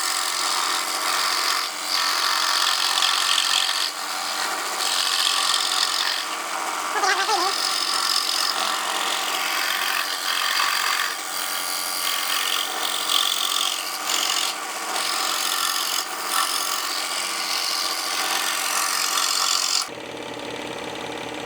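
Dremel scroll saw running and cutting wood, its reciprocating blade rasping steadily along a curving line. Near the end the sound drops in level.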